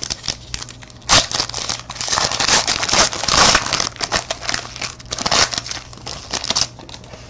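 Wrapper of a trading-card pack being torn open and crinkled by hand, a sharp rip about a second in followed by several seconds of dense crinkling that thins out near the end.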